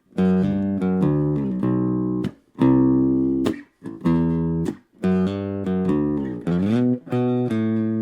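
Electric bass guitar played with a pick through an EROK MA10 mini bass amp: a run of separate picked notes in short phrases with brief gaps, and a slide up in pitch past the middle. The tone is plucky.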